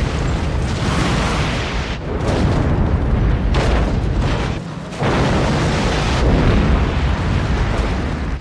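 Sci-fi sound effects of the starship Enterprise-D crashing: a loud, continuous rumble with explosions. It dips briefly about two seconds in, drops out for a moment just before five seconds, then comes back at full strength.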